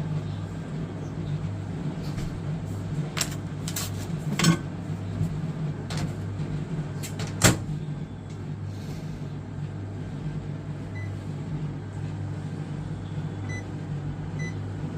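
Microwave oven running with a bag of microwave popcorn inside, a steady low hum. A few sharp clicks come in the first half, the loudest about seven and a half seconds in.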